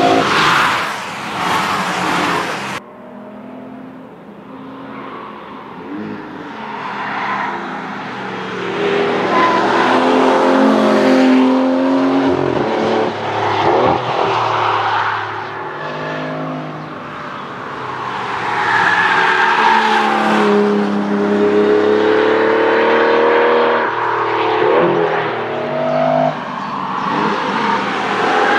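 Aston Martin V12 Vantage S's V12 engine at full throttle, its exhaust note climbing through the revs and dropping back at each gear change, swelling and fading as the car comes past several times. Sound cuts off abruptly about three seconds in.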